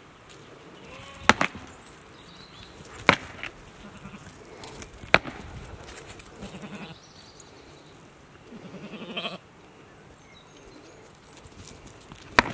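Ouessant rams butting heads: sharp cracks of horn striking horn, three in the first five seconds and one more near the end. A short bleat comes about nine seconds in.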